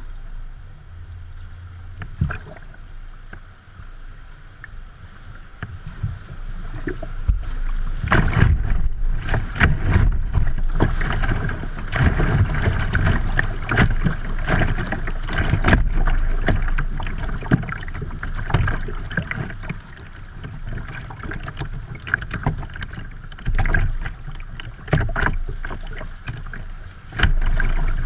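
River water rushing and splashing against a kayak's bow, heard close up from the deck as the boat runs through a small whitewater rapid. Fairly quiet for the first several seconds, then louder and choppy with repeated splashes from about a quarter of the way in.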